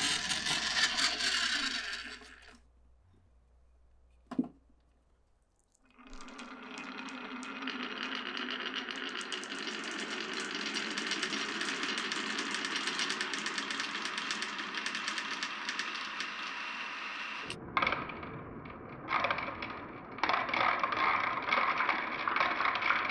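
Glass marbles rolling and clattering down a wooden marble run: a short burst of rolling, a near-quiet pause with a single click, then a long stretch of continuous rolling with fast fine ticking. The rolling breaks off near the middle and picks up again in stretches.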